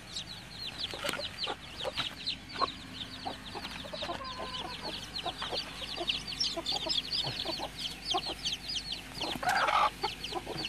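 Young chickens peeping without a break, many short high falling peeps a second, with lower clucks and clicks mixed in and a louder burst near the end.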